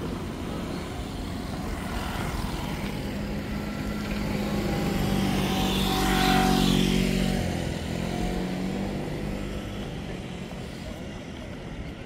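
A passing engine: its hum swells for several seconds, peaks a little past the middle, then fades, dropping in pitch as it goes by.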